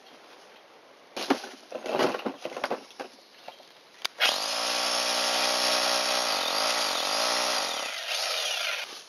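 A few knocks and clatters of handling, then about four seconds in a power drill starts boring into the concrete foundation wall with a long masonry bit. It runs steadily for about four seconds, slows briefly near the middle as it bites, then stops.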